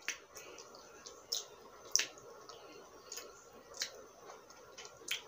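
Close-up eating sounds of a person biting and chewing a slice of ripe mango: wet mouth clicks and squishy smacks, about seven separate sharp ones spread unevenly, the loudest about two seconds in.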